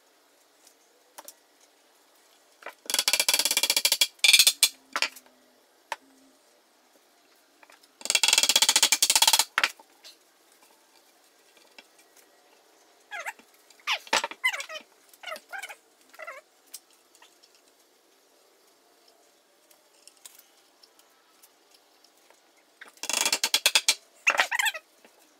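Three bursts of loud, harsh workshop tool noise, each about a second and a half long, with a cat meowing several times in between.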